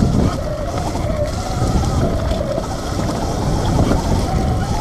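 Sur-Ron Light Bee X electric dirt bike riding fast on a dirt trail: a wavering electric motor whine that rises and falls with the throttle, over a dense low rumble of wind on the microphone and the ride.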